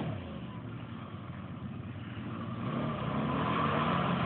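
Off-road vehicle's engine running, growing louder from about halfway as it revs up, with a rushing noise rising along with it.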